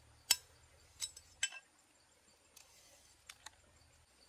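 Cooked crab shell being cracked and pulled apart by hand: a handful of sharp cracks and clicks, the loudest just after the start. Faint insect chirping repeats evenly underneath.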